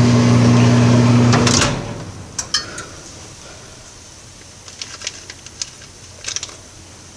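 Microwave oven running with a steady electrical hum that cuts off abruptly about a second and a half in, followed by a sharp click and a few light clicks and taps.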